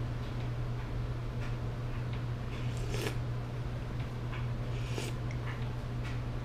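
A person slurping instant ramen broth from a plastic spoon: two short slurps, about three and five seconds in, with a few faint spoon clicks against the cup. A steady low hum runs underneath.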